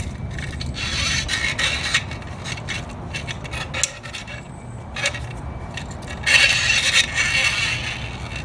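Irregular rubbing and scraping as gloved hands work a braided clutch feed line through a T56 transmission bellhousing, with a louder scrape about six seconds in.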